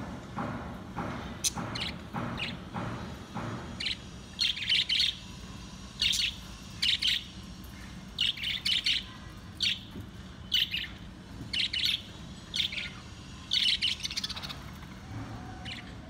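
Pet budgerigars chirping in their cage: short, high chirps in quick clusters, about one cluster a second, starting a few seconds in.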